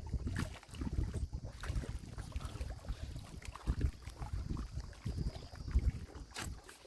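Wind buffeting the microphone in uneven gusts, a low rumble with a few faint clicks and one sharper click near the end.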